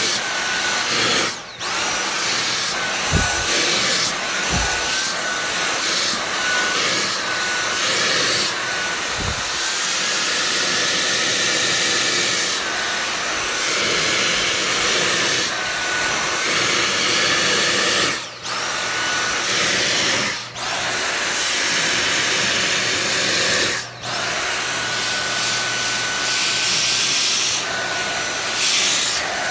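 Cordless stick vacuum running with its brush tool held against a cat's fur, a steady motor whine that steps up and down in pitch as the nozzle presses on and lifts off. The sound dips briefly a few times, about a second and a half in and again around three-fifths of the way through.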